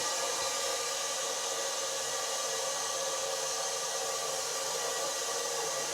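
Steady hiss of mains water rushing through a just-opened isolation valve and newly plumbed pipework as the fitting behind it fills up.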